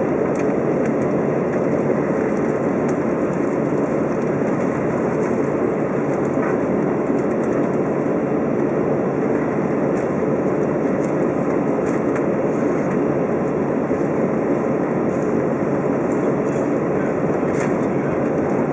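Steady cabin noise of an Airbus A320 taxiing on the ground, the engines and rolling airframe blending into one even noise, with a few faint light clicks now and then.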